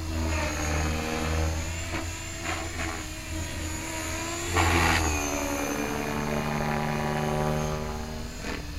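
Align T-Rex 550 electric RC helicopter flying 3D manoeuvres: the whine of the motor and main rotor rises and falls in pitch as the collective is worked. About halfway through there is a louder rush of blade noise.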